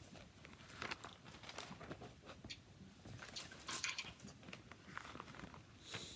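Faint rustling and soft clicks of thin Bible pages being turned as the passage is looked up.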